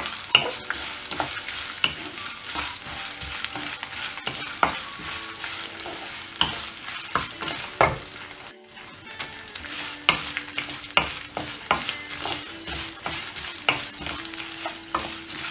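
A wooden spatula stirring and scraping in a kadai while curry leaves, chopped coconut and urad and chana dal fry in hot oil, sizzling, with frequent taps and scrapes of the spatula against the pan. The sound breaks off briefly about halfway through.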